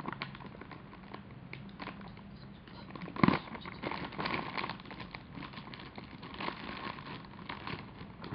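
A papillon crunching a small treat: scattered small crackles and clicks, with a louder knock about three seconds in.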